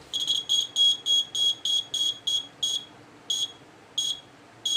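A small electronic buzzer on a homemade earthquake detector sounds a string of short, high-pitched beeps. They come quickly at first, then farther apart toward the end. The hanging weight, set swinging by a jolt to the base, is closing the contact again and again, and the gaps widen as the swing dies down.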